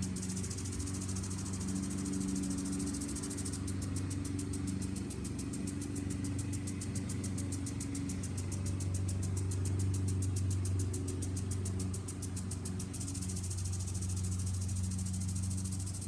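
Lawn mower engine running steadily, its hum shifting a little in pitch, with the fast, even ticking hiss of a sprinkler spraying over it.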